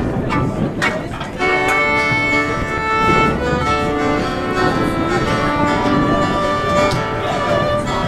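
A fiddle playing a melody of long bowed notes over strummed acoustic guitar.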